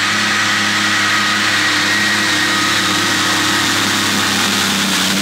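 Modified pulling tractor's engine running flat out at a steady high pitch while it hauls the weight sled down the track.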